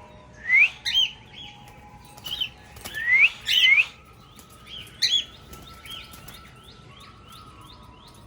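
Cockatiels calling: several loud rising whistled calls in the first five seconds, then a quick run of softer, repeated short chirps, about three a second, near the end.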